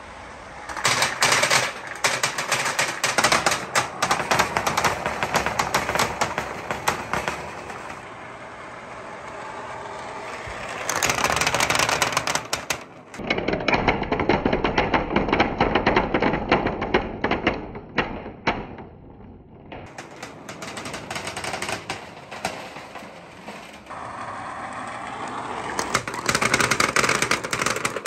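Many small balls rattling and clattering as they roll in a stream through a clear plastic tube and tumble out onto a board: a fast, dense run of clicks that comes in waves, dipping briefly a little after the middle.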